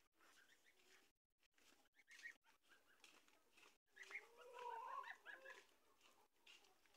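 Young domestic geese calling faintly with scattered short, high peeps that thicken about four seconds in, mixed with a few longer gliding calls.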